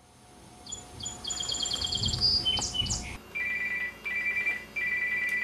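High chirps and a short trill over outdoor background noise. Then, about three seconds in, a telephone starts ringing with an electronic two-tone trill, in three bursts with short gaps.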